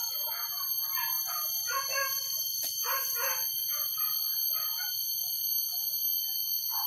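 Hunting dogs yelping and whining, in irregular short calls that are busiest in the first few seconds, over a steady high-pitched buzz of forest insects.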